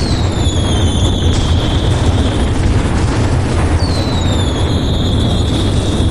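A dense fireworks barrage: continuous booming and crackling with a heavy low rumble, cut through by two whistling fireworks, each a whistle falling slightly in pitch. The first whistle comes at the start and the second about four seconds in.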